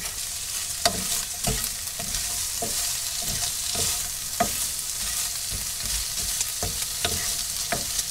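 Sliced kebab meat sizzling in a frying pan on a gas hob while a wooden spatula stirs it, knocking and scraping against the pan about ten times.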